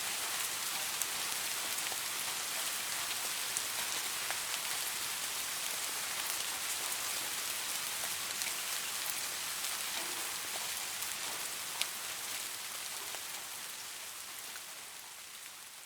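Steady rain falling, an even hiss with scattered drops ticking sharply, fading out toward the end.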